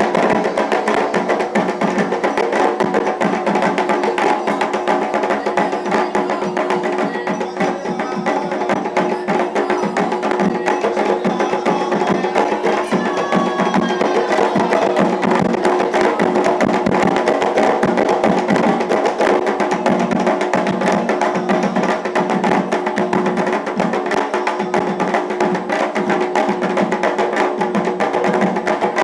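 Live Afro-Brazilian religious drumming: hand drums with a sharp, clacking struck percussion keeping a steady rhythm.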